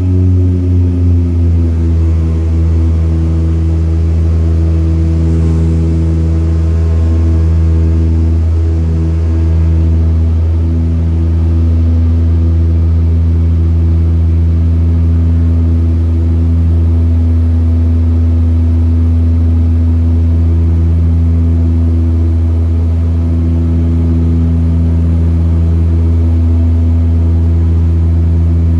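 Cabin drone of a DHC-6 Twin Otter's Pratt & Whitney Canada PT6A turboprops and propellers in flight, heard from the seat beside the engine. Its pitch settles slightly lower with a brief throbbing in the first two seconds, then holds a steady low drone.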